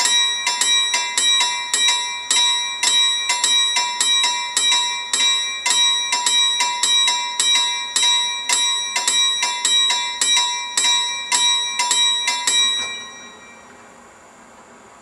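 Finnish level-crossing warning bell ringing in steady rapid strikes, a little over two a second, then stopping about 13 seconds in. It rings on with the crossing empty because a faulty middle-section induction detector loop keeps the alarm going until the train has cleared all detection sections. After it stops only a faint steady hiss remains.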